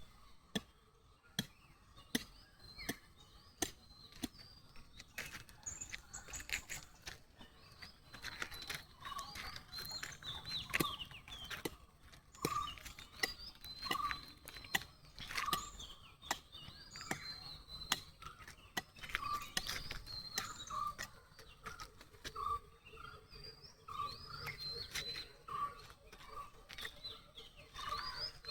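Several birds chirping and calling at once, with one bird repeating a short, lower note about once a second through the later part. Sharp clicks sound at regular intervals in the first few seconds.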